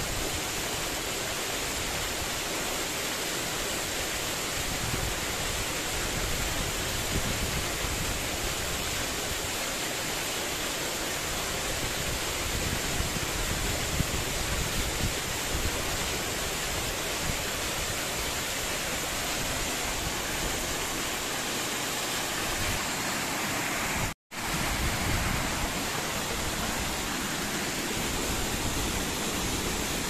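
Waterfall falling onto a rocky pool: a steady rush of falling water. It cuts out for an instant about three-quarters of the way through.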